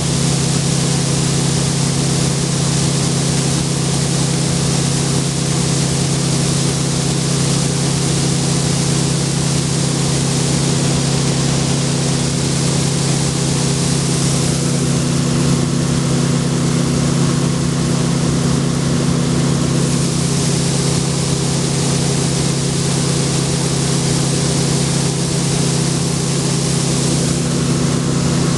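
International 1480 axial-flow combine running steadily at working speed while unloading corn into a truck, its engine's hum steady throughout under a constant rushing hiss.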